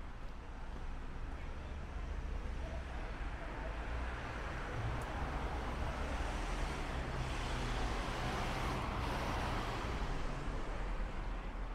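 Street traffic: a steady low rumble of cars, with a vehicle passing by that swells in the middle and fades near the end.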